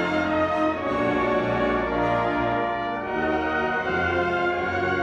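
Orchestral background music led by brass, with French horn and trombone playing sustained, changing chords.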